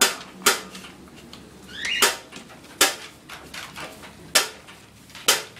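A bull terrier and a puppy tussle over a tug toy on a wooden deck, giving about six sharp knocks at irregular intervals. There is one short, high, rising squeak just before two seconds in.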